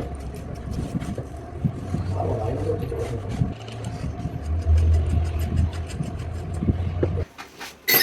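Engine running with a steady low hum and some clatter, cutting off abruptly about seven seconds in.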